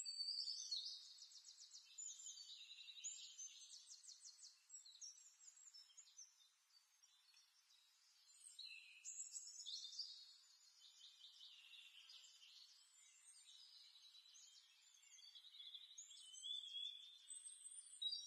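Faint birdsong: small birds chirping and trilling in quick, high notes, with several overlapping calls that carry on throughout.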